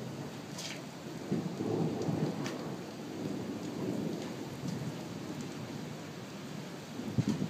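Thunder rumbling through steady rain in a lightning storm. The rumble swells about a second in and again briefly near the end, with a few sharp ticks over the hiss of the rain.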